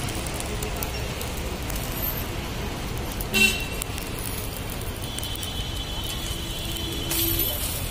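Roadside traffic noise with a vehicle horn giving one short, loud toot about three and a half seconds in, then a fainter, longer pitched horn-like tone from about five to seven and a half seconds.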